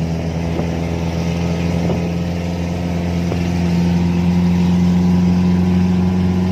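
Off-road jeep's engine running steadily while the vehicle drives along, heard from inside the open-top cab, a little louder from about four seconds in.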